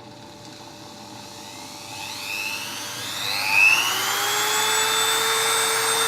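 Mini rotary tool (Dremel-type engraver) motor whining, starting about two seconds in and rising in pitch as it is turned up through its speed settings, then holding steady at a high pitch.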